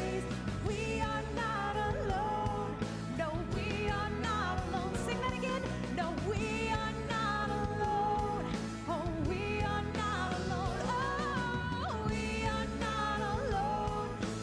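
Contemporary worship band music with a singing voice over it: a voice sliding through long notes above steady band chords.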